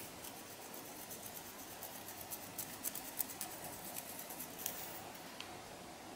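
Plastic fine-tooth comb scratching through hair along a dandruff-flaked scalp, heard as a sharp click at the start and then a run of crisp little scratches and ticks, thickest in the middle and dying away about five seconds in.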